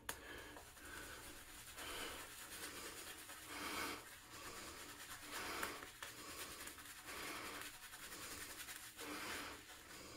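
Boar bristle shaving brush working lather over a stubbled face in faint, soft rubbing strokes that swell and fade about every two seconds.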